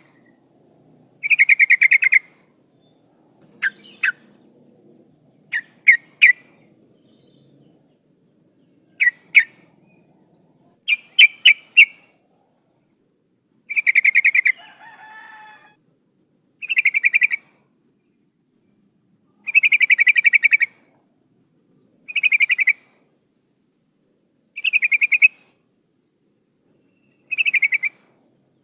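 Yellow-vented bulbul calling: short, rapidly pulsed chattering phrases about a second long, repeated every two to three seconds, with a run of sharp single chips in the middle. The uploader presents the calls as a female calling to draw in a male.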